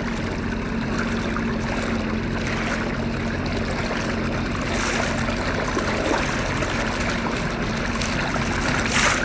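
Water splashing and trickling around bare feet trailed in the water from a slowly moving boat, over the steady hum of the boat's motor. There is a louder splash near the end.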